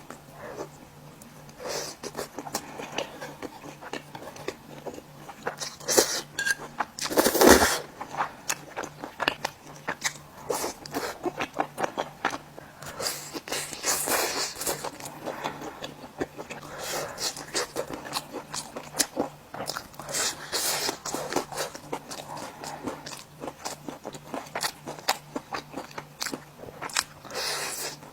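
Close-miked mukbang eating: repeated bites and chewing with crisp crunching clicks, and one louder crunch about seven seconds in, over a faint steady low hum.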